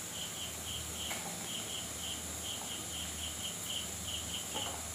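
Crickets chirping in short, even pulses, several a second, over a steady high hiss and a low hum.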